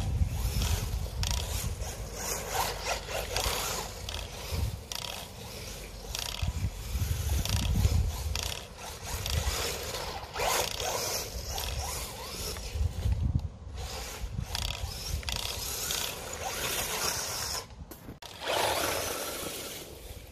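Himoto Katana E10 brushless 1/10-scale RC truggy driving offroad: tyres and chassis scrabbling and scraping over loose dirt in uneven bursts, with low rumbling throughout.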